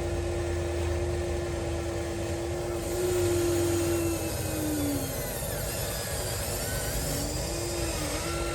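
Electric motors of a 1:14 scale Huina radio-controlled construction model whining at a steady pitch. The pitch sags and the whine drops away about halfway through, then picks back up and steadies near the end.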